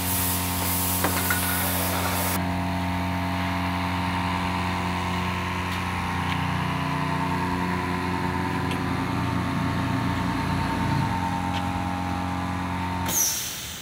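Small electric air compressor running with a steady hum, cutting off near the end with a short burst of hiss. Over the first two seconds an aerosol can of spray paint hisses loudly.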